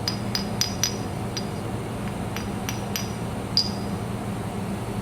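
Steel workpieces being handled: about a dozen light, irregular metallic clinks, each with a short high ring, over a steady low electrical hum from the running laser welding equipment.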